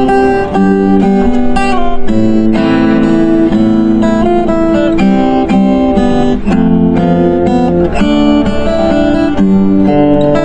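Acoustic guitar instrumental: a plucked melody over chords.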